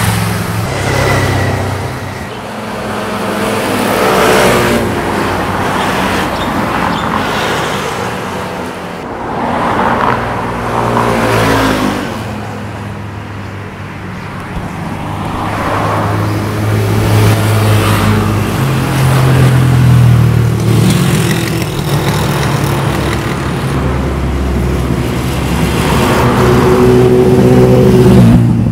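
Several motorcycles passing one after another, each engine swelling in loudness and rising in pitch as it accelerates by, then fading.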